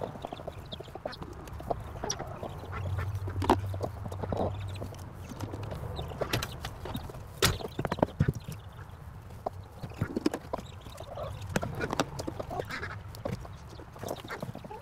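Poultry calling in the coop, with scattered small knocks and clicks as eggs are picked up and set into a plastic bucket.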